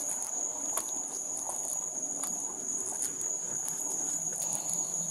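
Steady high-pitched chorus of night insects, a continuous trill that holds one pitch, with scattered light clicks and rustles over it.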